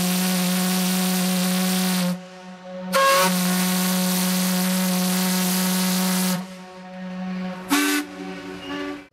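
Ships' steam whistles blowing as two steamers meet: a long steady blast that ends about two seconds in, a second long blast from about three to six seconds in, then a short blast at a higher pitch about eight seconds in.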